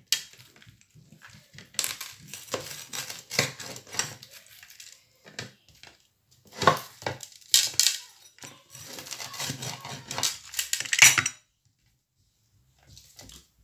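Crisp pan-fried cheese paratha being torn and broken apart by hand: irregular crackling and crunching that stops about two seconds before the end.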